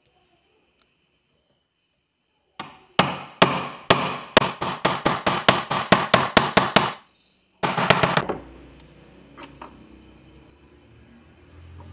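A rapid run of sharp metal knocks, about four a second and quickening, as an RS380 DC motor is tapped down onto a small metal shaft coupler held in a bench vise, seating the coupler on the motor shaft. A short cluster of knocks follows near the end.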